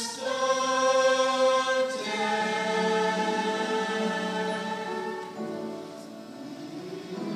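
Choir singing long held chords that shift a few times and grow softer near the end.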